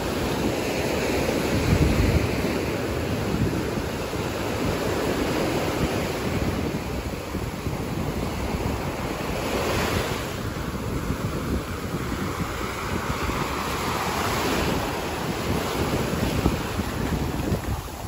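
Small surf waves breaking and washing up a sandy beach in a continuous foamy hiss that swells with each wave, the brightest surge about ten seconds in and another near fifteen seconds. A low rumble of wind buffeting the microphone runs under it, strongest about two seconds in.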